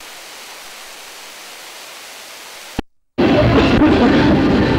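Steady hiss of a videotape playing a blank, no-signal stretch, ended by a click and a brief dropout about three seconds in. Then loud fairground noise with music starts abruptly.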